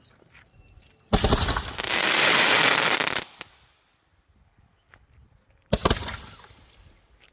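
Multi-shot skyshot fireworks firing: about a second in, a rapid string of cracks runs together into a dense loud rattle for about two seconds and fades out, then a second, shorter burst goes off near the end and dies away.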